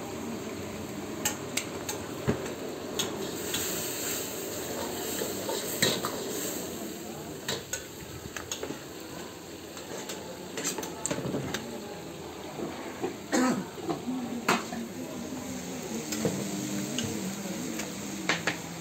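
Metal cooking utensils clinking and knocking: a steel ladle against an iron wok and steel food containers, with scattered sharp clinks over a steady hiss.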